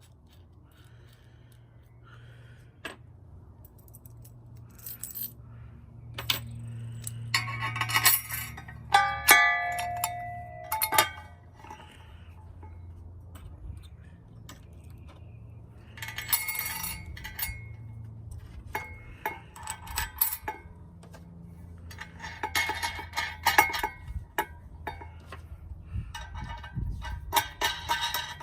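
Metal clinking, knocking and scraping as a mounting plate and bolts are handled and set in place on a bench vise, with a brief metallic ring about nine seconds in.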